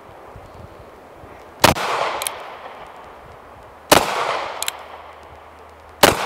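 Three shots from a North American Arms Pug .22 Magnum (22 WMR) mini revolver with a 1 1/8-inch barrel, about two seconds apart, each a sharp crack with a short echo. A fainter click follows each of the first two shots.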